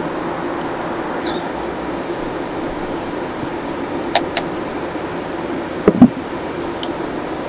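A steady low hum runs throughout. Two sharp clicks come about four seconds in, then two heavier knocks against the RV's rear wall just before six seconds in, the loudest sounds here, as hands and a hand tool are worked at the wall.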